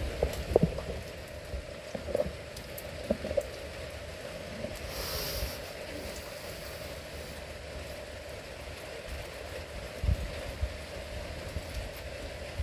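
Steady rain falling, with a few short knocks in the first three seconds and a couple of low thumps about ten seconds in.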